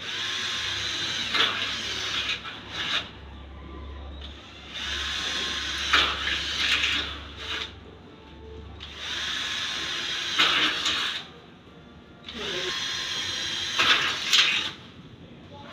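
Cordless drill drilling into an aluminium screen door frame, run four times for about two to three seconds each with short pauses between, the motor whine rising as each run starts.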